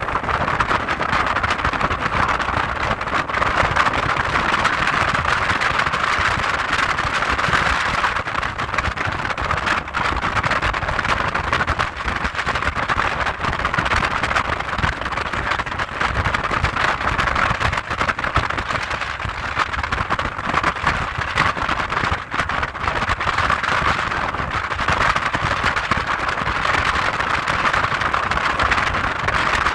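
Wind buffeting the microphone on a motorboat underway: a steady, loud rushing with a low rumble, which buries the engine.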